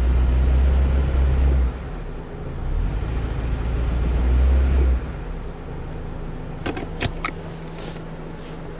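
Honda Fit's 1.5-litre L15A four-cylinder engine given two throttle presses with a loud low rumble, then settling back to a steady idle. The owner says this engine misfires when the throttle is pressed. A few sharp clicks come near the end.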